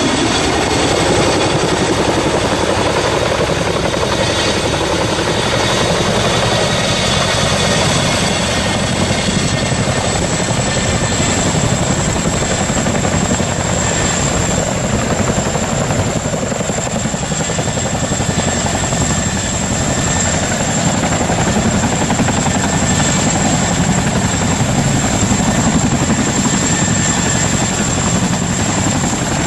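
Boeing CH-47 Chinook tandem-rotor helicopter flying: a loud, steady rotor and engine noise with a constant high whine above it, and a lower tone that falls in pitch during the first few seconds.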